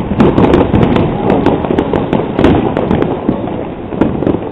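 Many fireworks and firecrackers going off at once across a neighbourhood: a dense, irregular string of sharp bangs and cracks, several a second, overlapping with no let-up.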